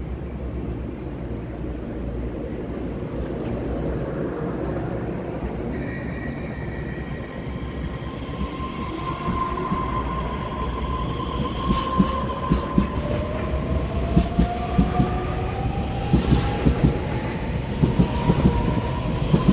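Taiwan Railways EMU3000 electric multiple unit pulling out and accelerating past at close range: a steady rumble under a motor whine that rises steadily in pitch through the second half, with wheel clicks over the rail joints coming faster and faster near the end.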